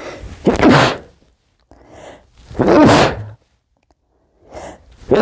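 A man's muffled sneezes, each led by short hitching breaths in. One sneeze comes about half a second in, another near three seconds, and a third begins right at the end.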